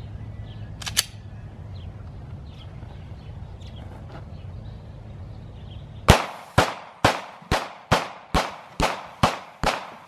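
Glock 23 pistol firing .40-calibre full metal jacket rounds in rapid fire, nine shots about two a second starting about six seconds in, each followed by a short echo. Before the shooting there is a steady low rumble and a single sharp click about a second in.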